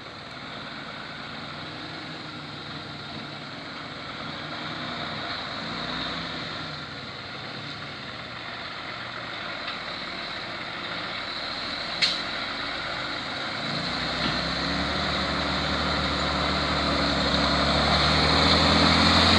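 Heavy truck engine running and growing steadily louder, with one sharp click about twelve seconds in; the engine note gets deeper and stronger from about fourteen seconds.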